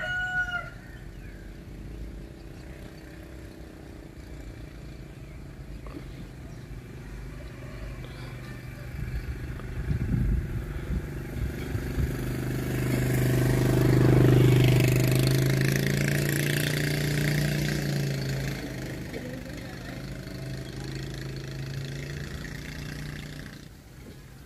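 A motor vehicle's engine going past: a low steady hum that builds to its loudest about halfway through, then fades away near the end.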